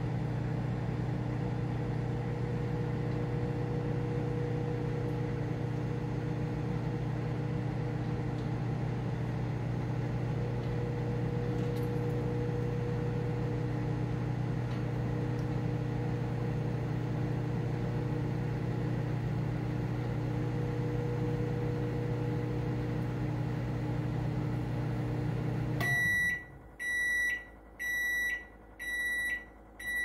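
Emerson microwave oven running with a steady hum, stopping about 26 seconds in and then giving four high beeps about a second apart to signal that the cooking time is up.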